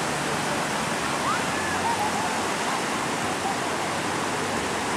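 Steady rushing of sea water and spray from boats moving fast over choppy waves, mixed with wind noise.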